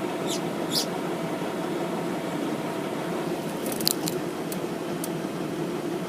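Steady hum of an idling engine, with two short high chirps in the first second and a quick cluster of sharp clicks about four seconds in.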